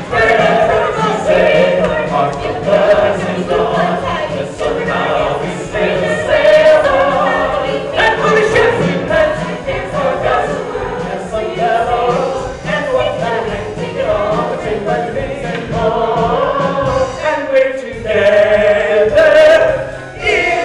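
A large musical-theatre cast singing together in chorus, building to a long held chord near the end.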